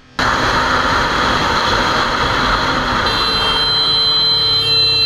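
Steady rush of wind and engine noise from a moving motorcycle, picked up by its mounted camera. About three seconds in, a horn sounds and is held steadily for a couple of seconds before cutting off.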